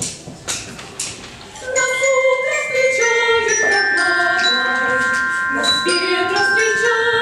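Three sharp stick taps about half a second apart, like a count-in. About two seconds in, the ensemble enters: a bright tuned mallet-percussion melody over long sustained bayan (button accordion) chords.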